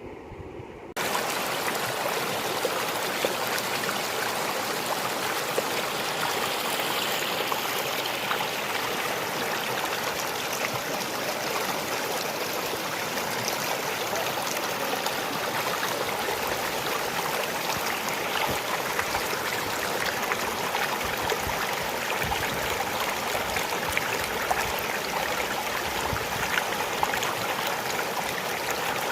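Floodwater rushing in a strong current across a road, a steady, dense rushing that starts abruptly about a second in.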